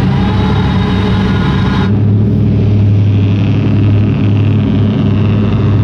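Motorboat engine running steadily at low speed, a loud low drone that holds an even pitch. About two seconds in, the hiss above the drone drops away and the sound goes duller.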